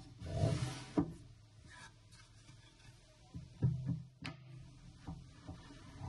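Wooden drawer sliding on a wooden runner inside a cabinet: a soft rubbing slide about half a second in, then a few light wooden knocks and clicks as it is pushed and fitted.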